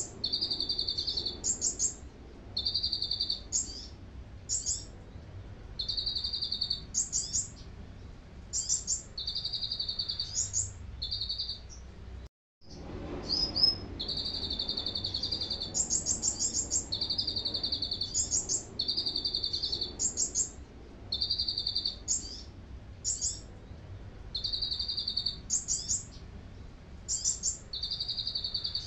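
Caged kolibri ninja (purple-throated sunbird) singing a canary-like song: a high buzzy trill of about a second, followed by quick, even higher notes, repeating every second or two. The sound cuts out completely for a moment about twelve seconds in.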